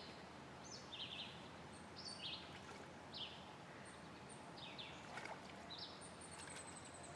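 Birds chirping softly, short high calls repeating every second or so, over a faint steady outdoor background.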